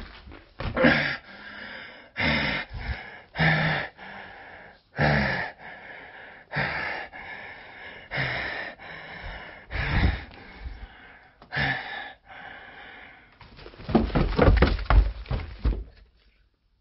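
A person breathing hard close to the microphone, a loud breath about every one and a half seconds, followed near the end by a quick run of handling thumps and knocks.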